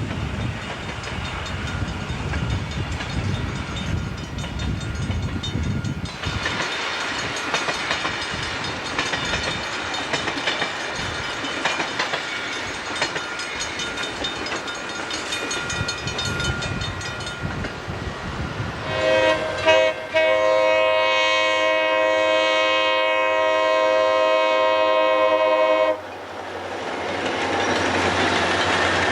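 A train passing with rumble and wheel-on-rail noise. Near the end the locomotive's multi-chime air horn sounds a short note, then a long one of about five seconds that cuts off sharply.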